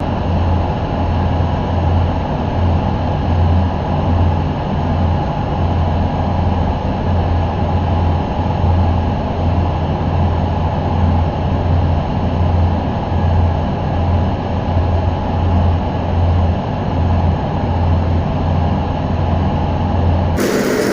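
Electric arc welding: a steady crackling, hissing arc over a deep, pulsing hum from the welding machine. The sound changes abruptly just before the end.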